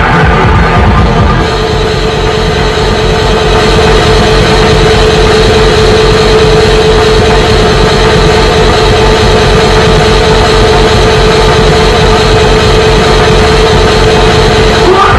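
Live cybergrind/noise music with no vocals: a dense wall of distorted electronic noise over fast, even low-end beats, with a steady droning tone that sets in about a second in and holds until near the end.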